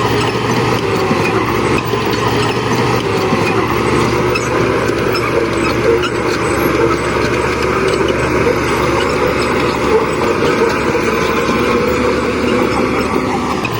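Heavy bulldozer diesel engines running steadily, a constant low drone with no sharp breaks.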